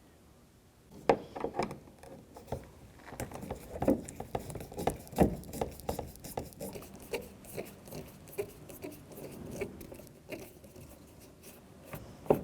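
A Phillips screwdriver turning out the screws behind a car door handle's plastic trim: after about a second of quiet, a long irregular run of small clicks and scratchy scrapes.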